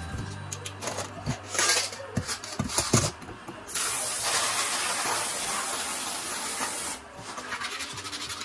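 Asari clam shells clicking and clattering as they are dropped into a metal colander. Then a kitchen faucet sprays water onto them in a steady hiss for about three seconds and cuts off, and is followed by a rapid run of small clicks as the shells are rubbed together to wash them.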